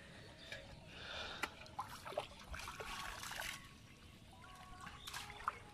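Faint trickling and splashing of shallow water, with scattered small clicks and knocks.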